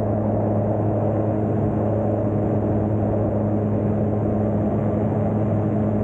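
Light aircraft's engine and propeller droning steadily in level flight, with airflow rushing past.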